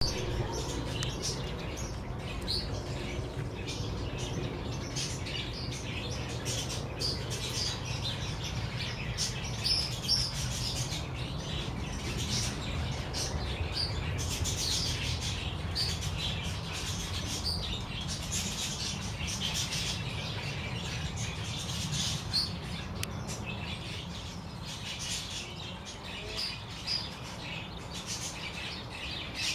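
Birds chirping: many short, high chirps repeating throughout, over a low steady rumble.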